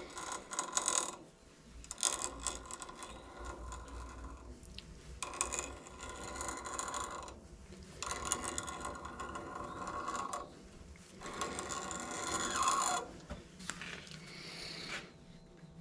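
A 1/2-inch-13 tap being turned by hand into a pressure washer fitting, cutting new threads: about six turning strokes of one to three seconds each, with short pauses between, the tap grinding and squeaking in the metal as it bites.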